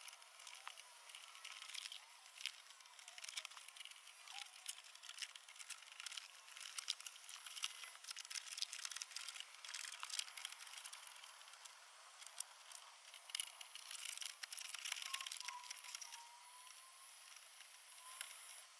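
Plastic wrap being pulled and torn off a damaged car body, crinkling and crackling with many sharp little clicks. It sounds faint and thin, with no low end.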